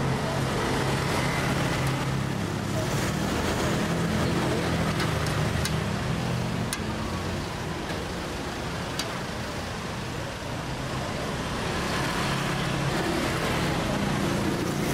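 Street traffic noise: a steady engine drone that swells and eases, with a few faint clicks.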